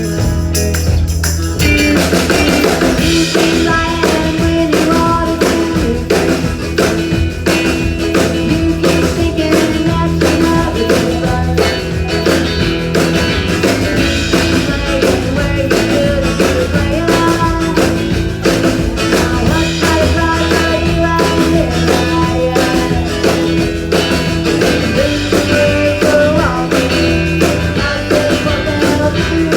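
Live rock-and-roll band playing, with drum kit and electric guitar over a steady beat.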